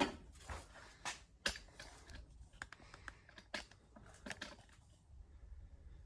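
Scattered light clicks and knocks of things being handled, about half a dozen, with the sharpest at the very start and about a second and a half in.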